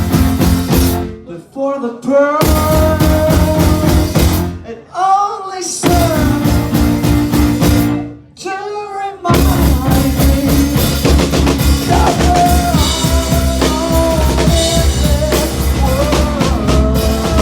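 Live rock band with a singer. The band plays in loud stop-start blocks, with short breaks where the singing voice carries almost alone. About nine seconds in, the full band with drums comes in and keeps going under the vocal.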